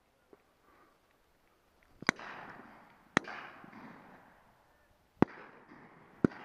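Four shotgun shots in two pairs about a second apart: two around two and three seconds in, two more around five and six seconds in. The first two trail off in a long rolling echo.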